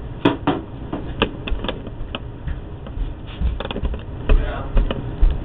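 A string of about fifteen irregular clicks and knocks, with dull low thumps that are heaviest in the last couple of seconds.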